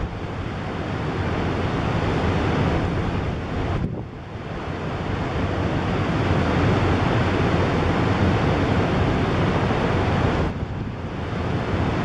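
Heavy Pacific Ocean surf breaking and rushing, with wind buffeting the microphone. The noise drops briefly about four seconds in and again near the end.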